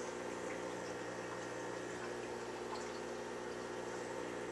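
Aquarium filter running: a steady hum with water trickling, even throughout.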